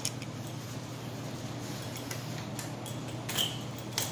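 A few light clicks and taps of metal bike parts being handled, the sharpest right at the start, over a steady low hum.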